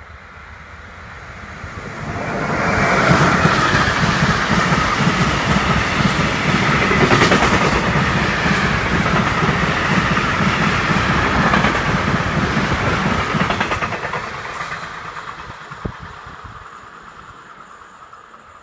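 Freight train passing close by on the rails, its wheels rumbling and clattering. It swells over the first couple of seconds, stays loud for about ten seconds as the wagons go by, then fades as it runs away.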